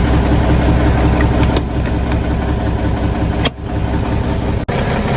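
1978 Peterbilt 359's 400 Cummins inline-six diesel idling steadily, warming up just after a jump-started cold start. The sound breaks off briefly about three and a half seconds in and again near the end.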